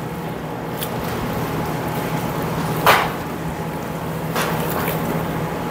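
Knife cutting and scraping along pork bone, with one short, louder scrape about three seconds in and a fainter one a little later, over the steady hum of a window air conditioner.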